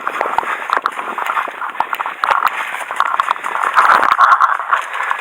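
Footsteps of a person running, with clothing and gear rustling and knocking as they go.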